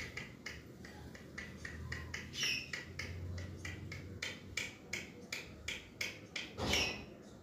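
Alexandrine parakeet biting and chewing into watermelon flesh with its beak: a rapid series of short clicks, about three a second, with one louder bite near the end.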